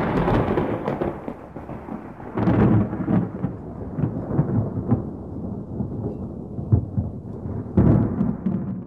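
Thunder-and-crash sound effects: a loud crack with rumbling at the start, another crash about two and a half seconds in and a third near the end, with sharp crackles and a low rumble between them.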